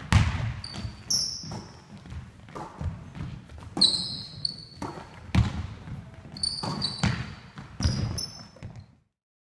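A basketball thudding on a wooden gym floor several times, with sneakers squeaking in short high chirps between the bounces, echoing in the large hall. The sound cuts off abruptly about nine seconds in.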